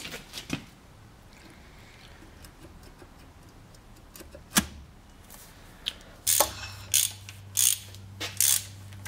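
A sharp knock about four and a half seconds in. Then a socket ratchet clicks in short repeated strokes, about one and a half a second, as the cylinder head nuts are run down on a sidevalve engine.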